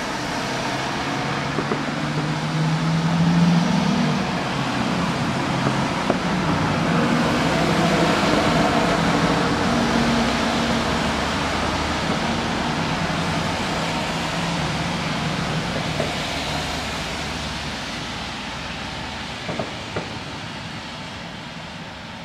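Fireworks display: a dense, continuous rumble and crackle from a rapid barrage of shells and ground fountains. It swells over the first half, slowly fades, and a few sharp pops come near the end.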